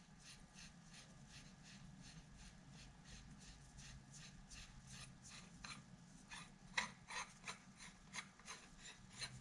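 Faint, even scraping of threads as the outer sleeve of a Leone quiet rifle barrel is turned off by hand, about three rasps a second. The scrapes grow louder and sharper after about six seconds.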